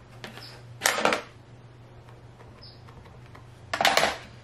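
Two short clusters of clacks and taps, about a second in and near the end, from inking a rubber stamp with an ink pad in a MISTI stamping tool.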